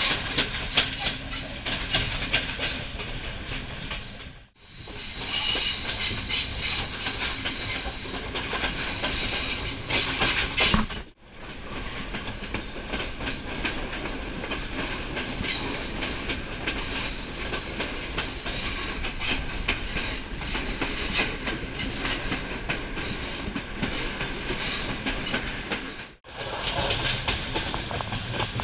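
Intercity passenger train running along the track, heard at an open carriage window: a steady rumble and rush with wheels clattering over the rail joints. The sound cuts out briefly three times, about four, eleven and twenty-six seconds in.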